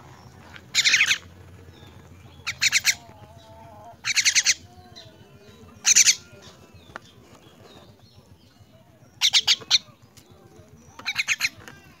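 A young myna giving harsh, rasping begging calls: six short bursts a couple of seconds apart.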